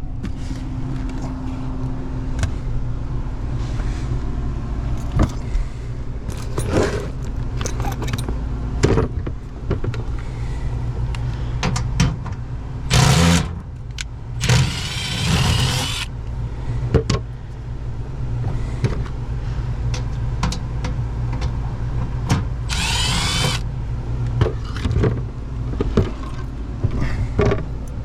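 Old Lennox HVAC unit running with a steady low hum. Irregular knocks, clicks and rustling handling noises sit on top of it, with three short louder rushing noises about halfway through and near the end.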